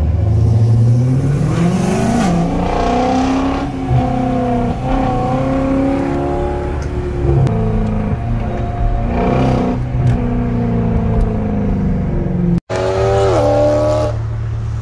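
BMW M3's S65 V8 with a Dinan exhaust accelerating, its pitch rising over the first two seconds, then running on with several rises and falls in revs. A brief dropout near the end is followed by a steady low drone.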